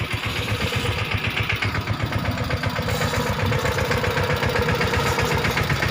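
Tractor's diesel engine running steadily, with a fast, even beat of firing pulses.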